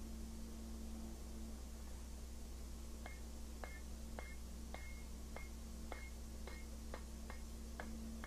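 Blacksmith's hammer striking hot iron on an anvil, about eleven blows spaced a little over half a second apart, starting about three seconds in. Each blow has a short, bright metallic ring, over a steady low hum.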